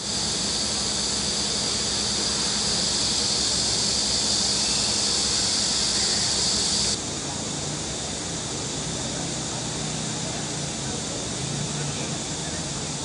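Cicadas droning in a steady, high-pitched buzz, with a faint low hum underneath. About halfway through, the sound drops suddenly to a somewhat quieter level and then goes on steadily.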